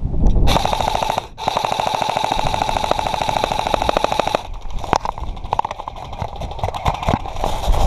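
Airsoft gun firing on full auto: a short burst, then a longer burst of about three seconds with a steady whine under the rapid shots, followed by scattered shorter bursts and single shots.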